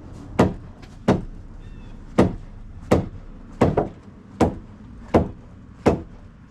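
Hammer blows on wood, about eight sharp strikes at a steady pace of roughly one every three-quarters of a second.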